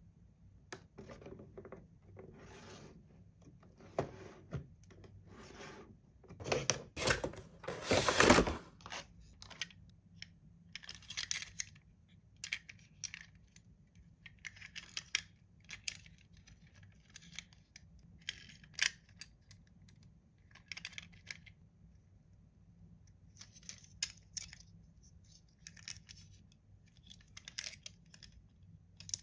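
Hands unpacking toy packaging: irregular short scrapes, rustles and small clicks, with a louder flurry of handling about seven to eight seconds in.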